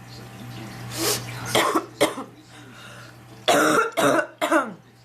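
A sick woman coughing: a quick breath in, two short coughs about a second and a half in, then a louder run of three rough coughs about three and a half seconds in, each trailing off in a falling voiced rasp.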